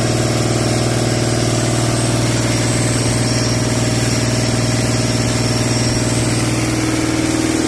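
Hino J08 inline-six diesel engine idling steadily.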